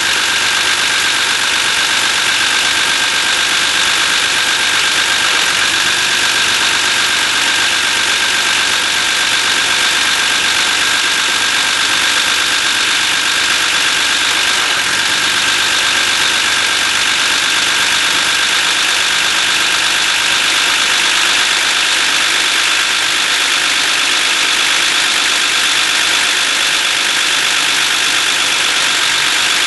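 BMW E39 engine idling steadily, with a constant high-pitched whine-like tone over the running: an unidentified fault noise that the owner suspects may come from the hydraulic lifters or the VANOS camshaft unit.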